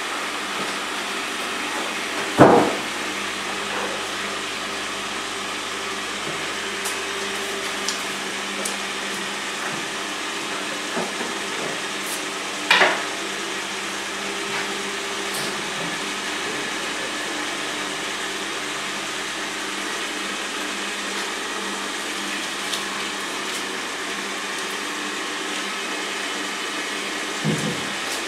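Motor-driven honey extractor spinning, with a steady motor hum and whir. Three loud knocks stand out, about two and a half, thirteen and twenty-seven seconds in.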